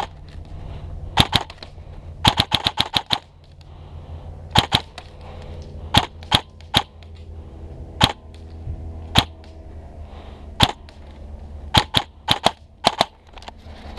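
Airsoft electric rifle, an Umbrella Armory LVOA-S, firing sharp snapping shots, mostly one at a time about a second apart. There is a quick string of about eight shots about two seconds in, and a few shots in quick pairs near the end.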